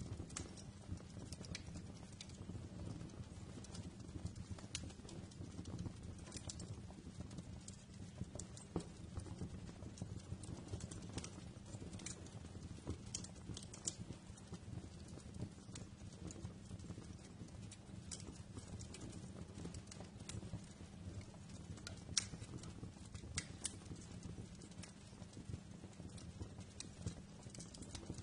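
Wood fire in a fireplace crackling: irregular sharp pops and snaps over a steady low rumble of burning, with one louder pop about two-thirds of the way through.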